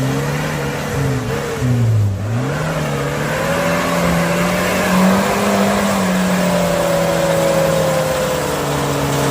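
Engine of a stock Suzuki Caribian (SJ413) 4x4 working off-road. Its pitch dips about two seconds in, climbs and holds, then eases down near the end.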